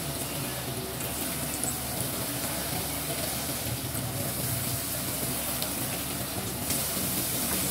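Bakwan keranjang, vegetable-fritter batter in wonton-wrapper baskets, frying in shallow hot oil in a pan: a steady sizzling hiss.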